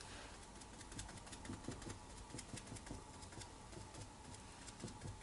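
Faint, irregular soft taps and brushing of a paintbrush dabbing watercolour paint onto paper.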